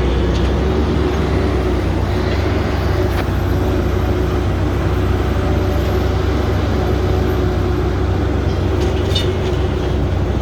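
Haul truck's diesel engine running steadily, heard from inside the cab: a constant low drone with a steady hum, and a faint click or knock about three seconds in and again near the end.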